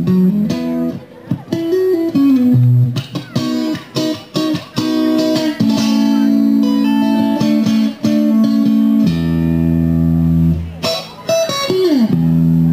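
Rock band playing: electric guitar and bass guitar hold sustained notes, with notes sliding in pitch about two seconds in and again near the end.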